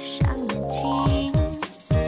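Background Mandarin pop song with a steady beat, low drum hits about twice a second, and a quick rising run of notes about halfway through.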